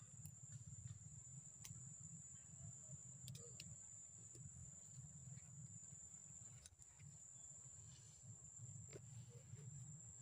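Near silence: a faint steady high-pitched whine over a low rumble, with a few faint scattered clicks.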